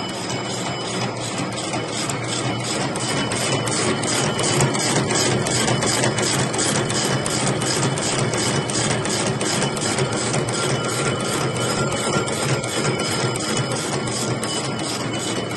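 Double-twisted barbed wire machine running: a steady mechanical clatter with a regular click about three times a second.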